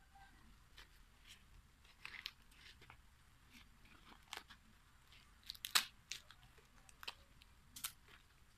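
Fresh corn husks being pulled and stripped off the ear by hand: faint, scattered dry crackles and rips, the loudest cluster a little past halfway.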